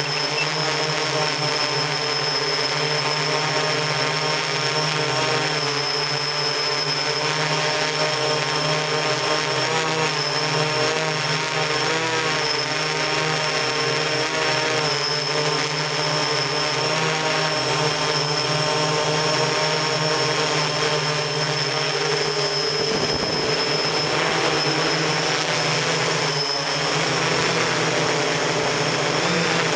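Octocopter's eight electric motors and propellers running in flight, heard from on board the camera craft: a steady multi-pitched whine whose pitches waver slightly as the motors adjust speed.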